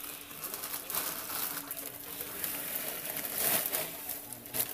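Clear plastic bag crinkling and rustling as dry mariposa noodles are shaken out of it into a wok of sauce.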